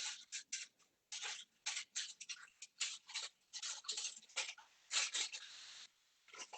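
Paper liner from the air fryer rustling and scraping in irregular short scratches as salmon stuck to it is worked loose.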